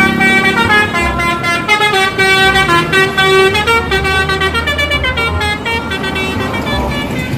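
Indonesian bus 'telolet' multi-tone musical horn playing a tune of held notes that step from one pitch to the next, over a low engine hum.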